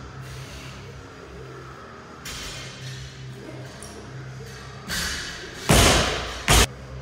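Two loud thuds from a 70 kg barbell loaded with bumper plates as it comes down from overhead, under a second apart near the end, the first ringing on briefly; background music plays underneath.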